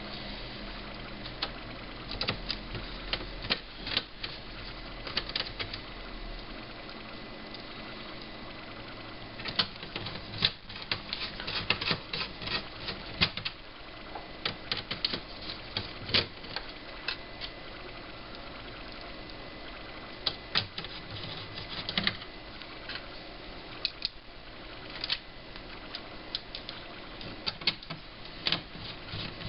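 Irregular clicks, taps and light clatter of small plastic and metal parts being handled as an LCD monitor is put back together, with quick runs of clicks in places.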